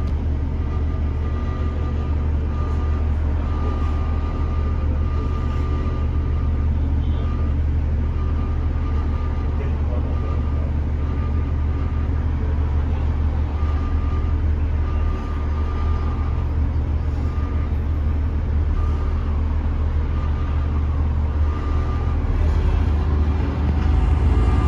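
Bus engine and running gear heard from inside the cabin, a steady low rumble, with a thin high metallic tone that keeps coming and going: the awful metallic sound this bus is making. The rumble grows a little louder near the end.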